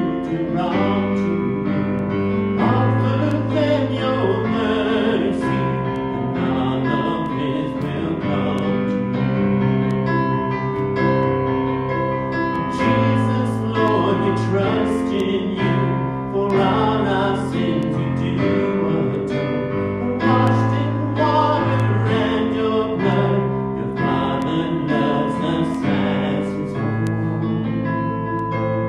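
A hymn sung over piano accompaniment, in long held notes.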